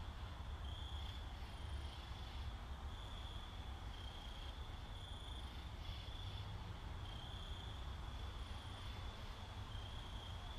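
Faint high-pitched trilling, like crickets, in stretches of about a second one after another at slightly different pitches, over a steady low hum.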